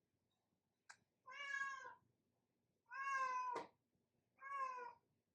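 A cat meowing three times, each meow short and drawn out, with a short click just before the first.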